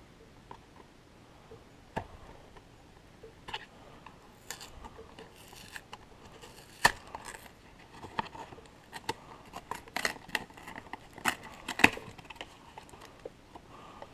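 Cardboard trading-card hanger box being pried and torn open by hand: scattered clicks, scrapes and short tearing sounds, most of them in the second half.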